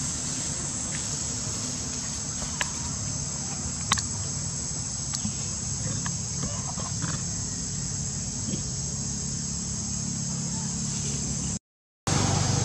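Steady high-pitched drone of insects in the background, with a few short clicks and rustles over it, the sharpest about four seconds in. The sound cuts out for about half a second near the end.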